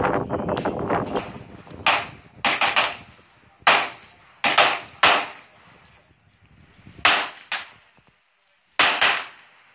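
Gunshots from firearms being fired on a shooting range: about ten sharp shots at irregular intervals, some in quick pairs, each with a short fading echo, after a dense clatter in the first second.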